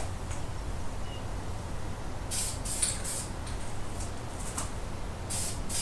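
Aerosol can of high-temperature caliper paint spraying in short hissing bursts onto brake calipers. The first burst comes about two seconds in and lasts about a second; another starts near the end.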